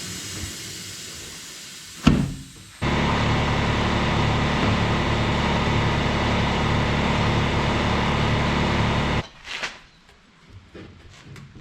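Industrial tire changer at work: a hiss, a sharp bang about two seconds in, then its motor running loudly and steadily for about six seconds before cutting off suddenly, followed by a few light knocks.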